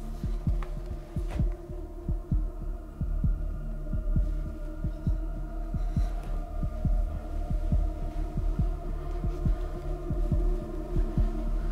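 Horror-film tension sound design: a low, steady droning hum with a fast, even, heartbeat-like low pulse running under it.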